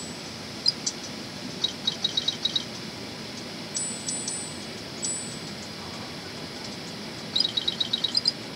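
Small birds chirping: two quick runs of high chirps, with a few thin high whistles in between, over a steady background hiss.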